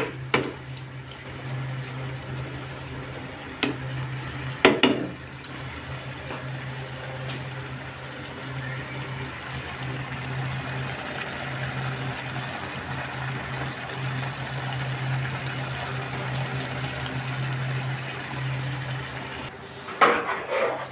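Prawn and kochur loti curry bubbling and sizzling in a frying pan as the masala is fried down, with a few knocks of a metal spatula against the pan in the first five seconds and a steady low hum underneath. A few louder knocks come near the end.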